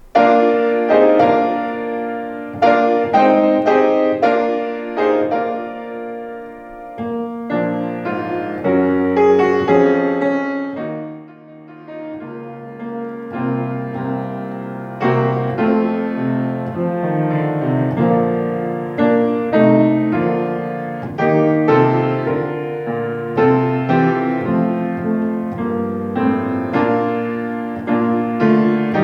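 Solo piano playing a slow piece of chords and melody, each note struck and fading away, with a brief lull about eleven seconds in.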